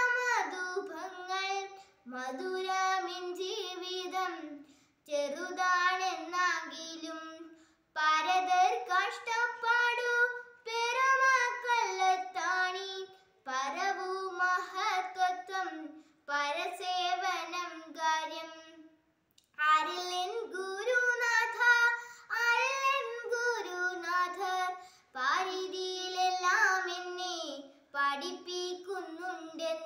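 A girl singing solo and unaccompanied, in phrases a few seconds long with short breaks for breath between them.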